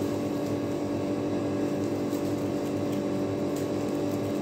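Steady machine hum at a fixed low pitch, like a running appliance motor or fan. Faint crackles of dry tobacco leaves being handled come a few times over it.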